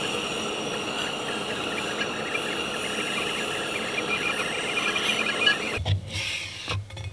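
Stainless stovetop whistling kettle whistling steadily at the boil, a high shrill whistle over a hiss of steam. It cuts off about six seconds in, followed by a few short knocks as the lid of an insulated carafe is handled.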